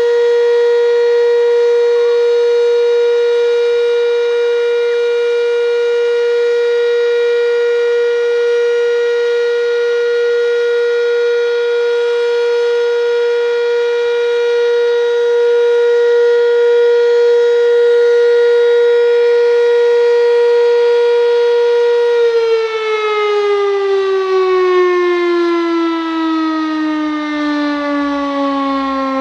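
Fire station alarm siren of a volunteer fire brigade wailing loudly on one steady tone. About 22 seconds in, its pitch starts sinking slowly as it winds down. It is sounded in memory of the brigade's departed firefighters.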